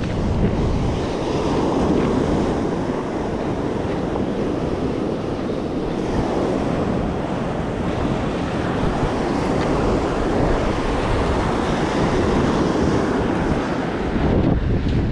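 Choppy sea surf washing onto the beach, with strong wind rumbling on the microphone.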